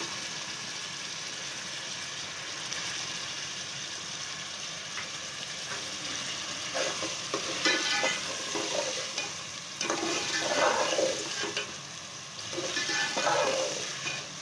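Sliced onions sizzling in hot oil in a metal pot as they are fried to light brown. From about seven seconds in, a metal ladle stirs and scrapes against the pot in several strokes.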